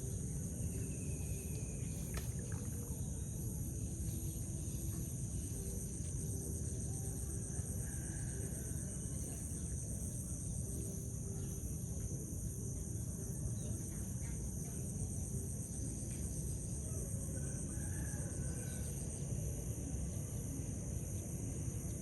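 Chickens clucking and calling now and then over a steady high-pitched insect chorus, with a low rushing background noise throughout.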